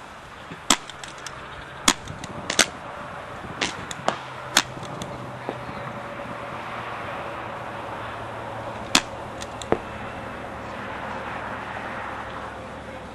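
Paintball pump markers firing single shots: about eight sharp pops, most in the first five seconds and two more about two-thirds of the way through. A faint steady hum sits underneath from about a third of the way in.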